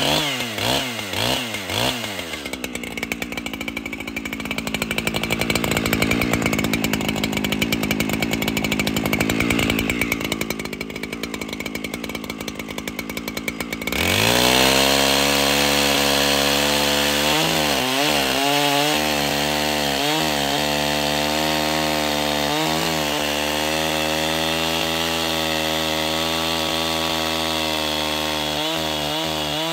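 Echo CS-7310 two-stroke chainsaw revving, then running at a lower speed until about halfway through. It then opens up to full throttle and cuts into a log, the engine note steady with a few brief dips as the chain takes load.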